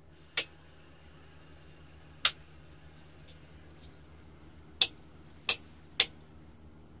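Five sharp clicks at uneven intervals, the first as a dashboard toggle switch on an Austin J4 van is flipped, over a faint steady low hum.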